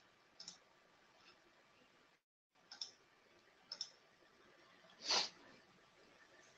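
Faint computer mouse clicks, a few spaced seconds apart, with a brief, slightly louder puff of noise about five seconds in.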